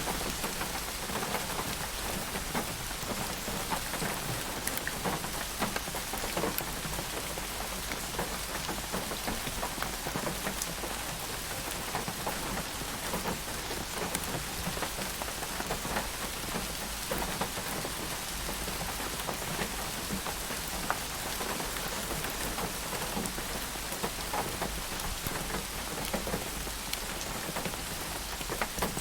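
Steady rain falling, an even hiss dotted with many separate drop hits.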